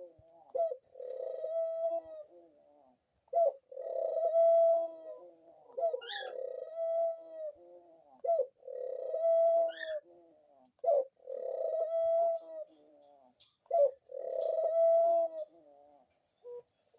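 Pet dove cooing in repeated phrases, each a short note followed by a longer drawn-out coo, about six times, with a few brief high squeaks between.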